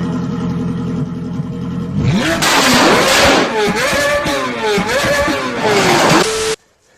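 An engine revving loudly, its pitch climbing and falling several times before cutting off suddenly. Music plays for the first two seconds.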